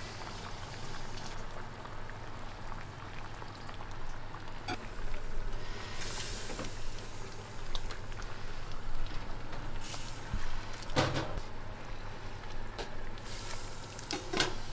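Large pot of pork miso soup (tonjiru) boiling, a steady bubbling hiss, with a few knocks and clatters over it.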